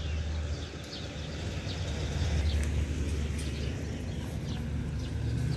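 Small birds chirping over and over in short high notes, over a steady low rumble.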